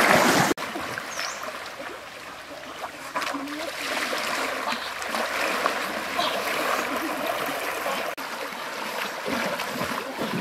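River water splashing and swishing as a person wades through it pushing a large floating iron wok. A loud splash comes at the very start, then a steady churning of water.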